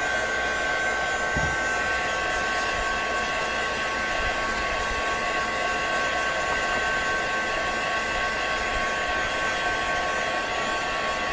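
Handheld heat gun blowing steadily: a rush of hot air with a steady high whine from its fan, drying wet water-soluble crayon colour on a paper journal page.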